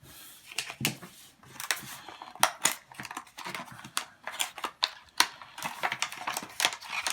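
A small cardboard product box being opened and its contents handled: an irregular string of sharp clicks, taps and crinkles, several a second.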